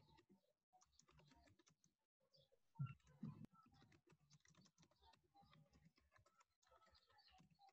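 Faint computer keyboard typing, a quick irregular run of key clicks, with two louder low thumps about three seconds in.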